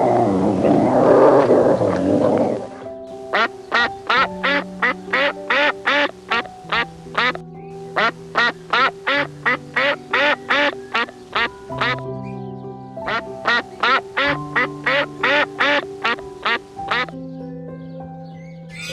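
Background music with sustained low notes under animal calls: a loud rough noisy burst for the first three seconds, then long runs of rapid, evenly spaced bird-like calls, about four a second, in three runs with short breaks between them.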